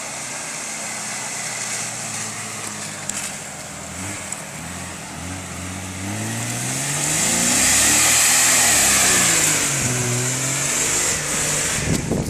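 Jeep Cherokee XJ's 4.0-litre straight-six engine running steadily, then revving up and down repeatedly under load as the Jeep climbs a steep dirt slope. A broad hiss rides over the loudest stretch, a few seconds in.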